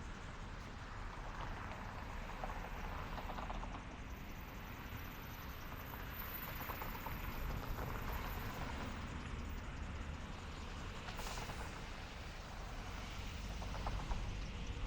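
City street ambience: traffic passing with a steady low rumble, and a brief hiss about eleven seconds in.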